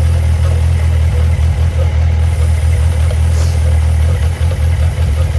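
Suzuki GSX1250FA's inline-four engine idling steadily, with a short faint hiss about three and a half seconds in.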